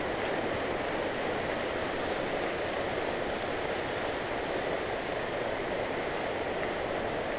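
Steady rushing noise of a mountain bike rolling down a dirt singletrack: wind over the bike-mounted camera's microphone and the tyres on the trail.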